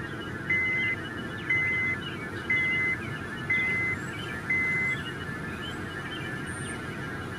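Vehicle or machine backup alarm beeping at a steady high pitch, one half-second beep each second, five times, then stopping. A steady low engine rumble runs underneath.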